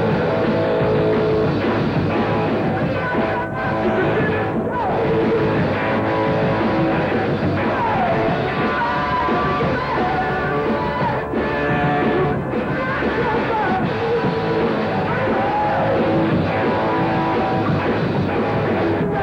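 Student rock band playing live: a steady, loud rock song with electric guitar and a singing voice over it.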